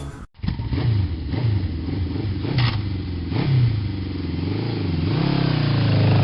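Motorcycle engine running under load, its pitch rising and falling several times as it accelerates and shifts, then building louder near the end.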